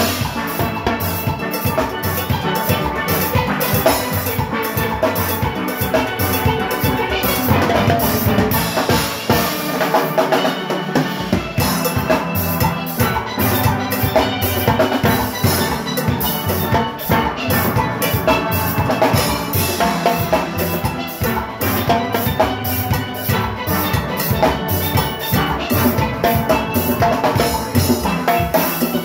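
Steel band playing at full strength: steel pans over an engine-room percussion section of drum kit, timbales and cymbals, driving a fast, steady beat. The bass drops out for about two seconds about a third of the way through, then comes back in.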